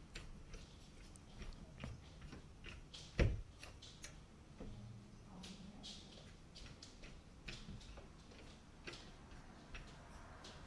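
Faint, scattered clicks and light knocks of hands handling small parts at a wall-mounted doorbell transformer, with one louder knock about three seconds in.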